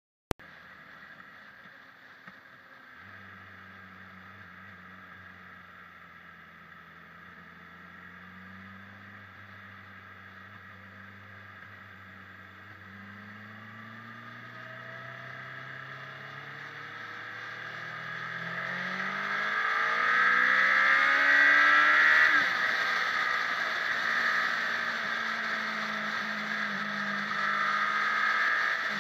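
Motorcycle engine running under way with wind rush on the microphone of a bike-mounted camera. The engine note climbs in pitch from about halfway through as the bike accelerates, and the engine and wind grow loudest about two-thirds of the way in. A short click at the very start.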